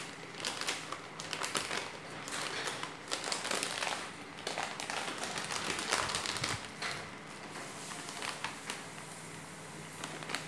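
Plastic sugar bag and thin plastic gloves crinkling and crackling as the bag is handled and worked open, with scattered small clicks and taps, busiest in the first several seconds and thinning out toward the end.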